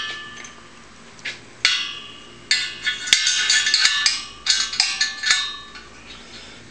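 Steel wire-wheel spokes clinking and ringing as they knock against each other and the rim: a series of sharp metallic strikes, some single and some in quick clusters, each ringing on briefly.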